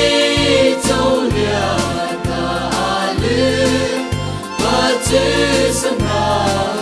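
Mara gospel song: several voices singing together over a bass line and a steady beat.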